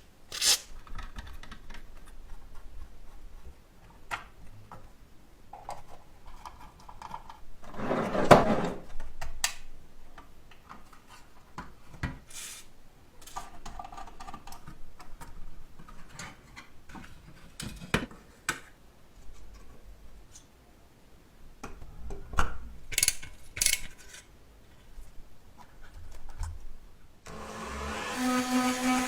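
Scattered clicks, knocks and scrapes of small parts being handled and worked by hand, with a longer scrape about eight seconds in. Near the end a small high-speed power tool, such as a rotary tool or drill, starts up and runs steadily.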